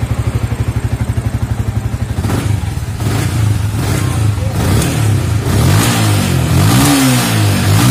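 A Yamaha Vixion's 150 cc single-cylinder fuel-injected engine idles with an even beat near 1,400 rpm for about two seconds. It is then revved with several throttle blips, the revs rising and falling. The throttle pickup is now even, after a fault in the intake air sensor connector (blink code 22) was fixed.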